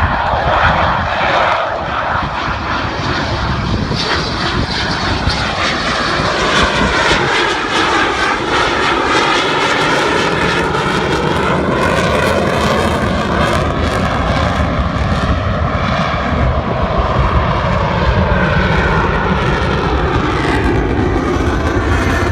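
USAF Thunderbirds F-16 fighter jets flying past: loud, steady jet-engine noise whose tone sweeps slowly up and down as the aircraft move overhead.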